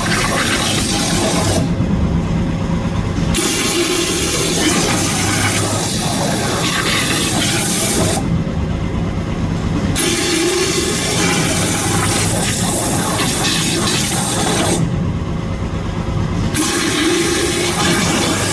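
CNC waterjet cutter's high-pressure jet hissing loudly through 10 mm urethane, over the low rumble of the machine. Three times the jet's hiss cuts off for about a second and a half and then comes back, while the rumble goes on.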